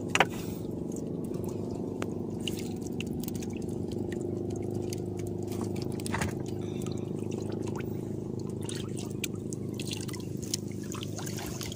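Sea water sloshing and lapping against the hull of a small outrigger boat, with a sharp knock just after the start and a softer one about halfway through.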